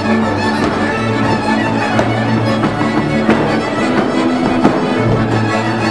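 A Transylvanian village string band playing folk dance music: several fiddles bowing the melody over a contra and a double bass, with no break.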